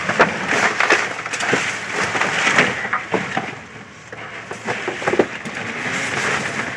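Trash being rummaged through in a dumpster: boxes and packaging rustling, crunching and knocking, with many sharp crackles.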